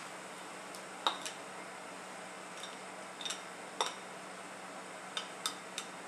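A spatula clinking and tapping against a plate as cicadas are scraped off it into a frying pan: several short, light clinks at irregular intervals over a quiet background.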